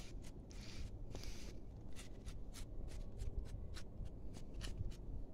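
Faint rustling and irregular scratchy clicks of handling close to the microphone, as a kitten is held and shifted against a wool sweater.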